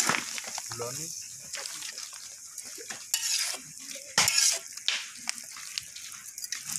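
Diced rabbit meat sizzling as it fries in a metal wok, stirred with a metal spatula that scrapes and clinks against the pan several times, loudest about three to four seconds in.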